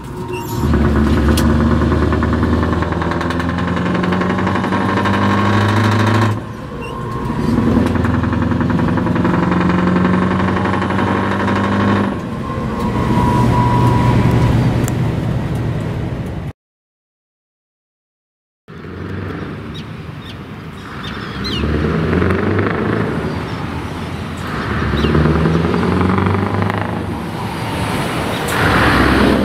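Scania 164G 580 V8 truck engine heard from inside the cab, pulling up through the gears: its pitch climbs and then drops back at each shift, about 6 and 12 seconds in. After a short silent cut, the same truck's V8 is heard from the roadside as it drives past, revving up in several steps.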